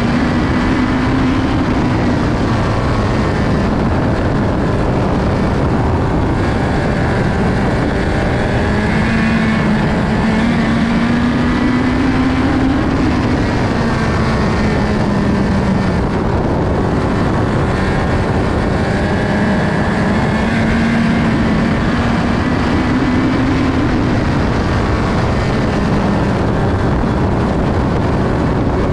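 Onboard sound of a USAC midget race car's four-cylinder engine running hard at racing speed, loud and steady. The engine note climbs and falls back in a cycle of about ten seconds as the car laps the oval.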